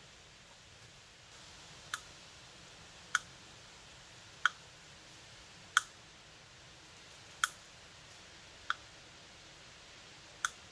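Snips cutting through strands of half-inch chicken wire: seven sharp, separate clicks, one every second and a half or so.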